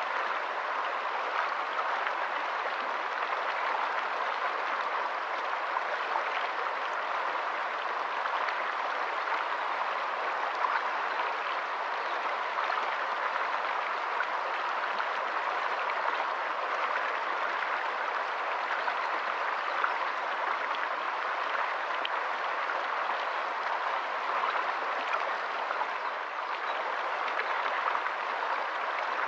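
A shallow, rocky stream running over stones: a steady rushing babble of water with small splashes flicking through it.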